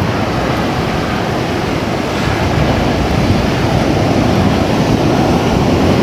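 Surf breaking on a sandy beach: a steady wash of waves, with wind rumbling on the microphone.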